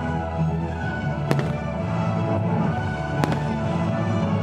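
Aerial firework shells bursting with two sharp bangs, one about a second in and another about three seconds in, over steady music.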